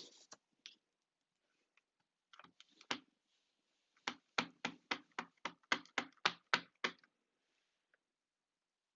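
Rubber stamp being tapped repeatedly on an ink pad: a few soft taps, then a quick run of about a dozen taps at roughly four a second that stops a few seconds before the end.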